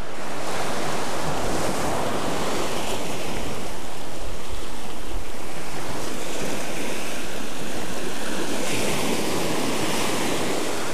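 Small surf breaking and washing up over sand and lava rocks at the shoreline, with wind noise on the microphone. The wash swells louder about three seconds in and again near the end.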